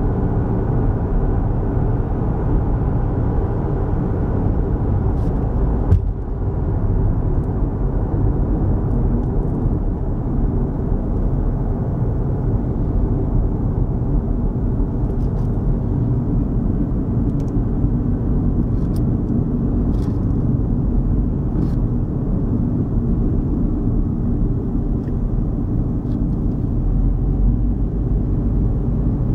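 Steady rumble of a car driving along a road, the engine and tyre noise heard from inside the cabin, with a brief dip about six seconds in.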